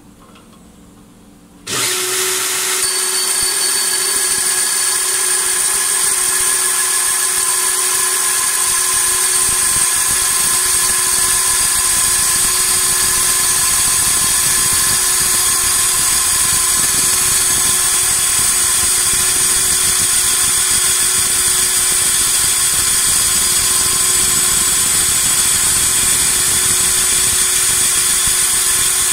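Belt-type pipe notcher's abrasive belt grinding a notch into the end of a round metal pipe: a loud, steady grinding hiss with a held whine, starting suddenly about two seconds in.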